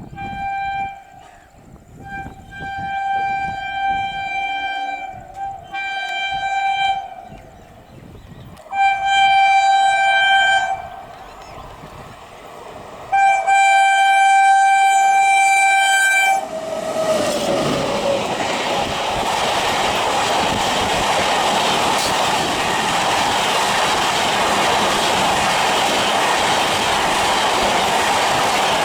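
Electric locomotive of an Indian express train sounding its horn in five separate blasts, the last and longest about three seconds, then the train passing at speed: a steady loud rush of wheels on rail with clickety-clack. The horn's pitch drops briefly as the locomotive goes by.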